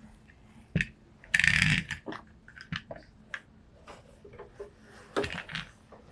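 Handling noise: a scatter of small knocks and clicks, with a louder brief rustling scrape about a second and a half in and another cluster of knocks about five seconds in.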